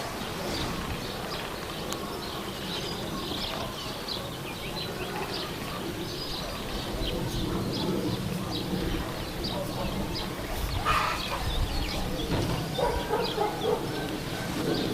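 Small birds chirping in short, irregular calls over a steady low background rumble.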